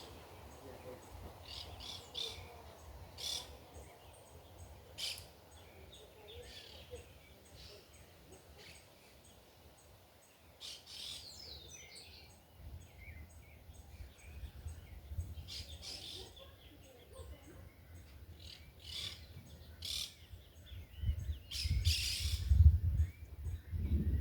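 Birds chirping in short, scattered calls, with wind buffeting the microphone as a low rumble that grows stronger near the end.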